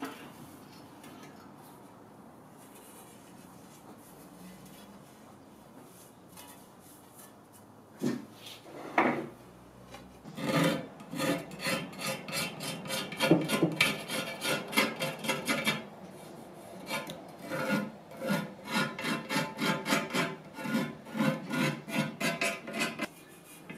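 Small knife blade scraping old white residue off the inner rim of a wooden mirror frame in quick repeated strokes, starting about ten seconds in after a quiet stretch with a couple of knocks.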